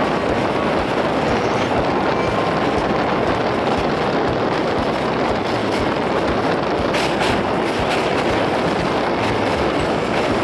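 Passenger train running across a steel truss railway bridge: a steady, loud rumble of wheels on the rails and the girders, with a run of sharper clicks from about seven seconds in.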